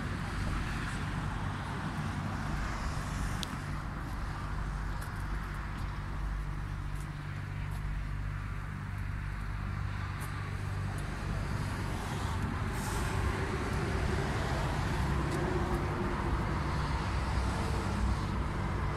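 A vehicle engine idling steadily, with a low even hum and a few faint clicks and taps over it.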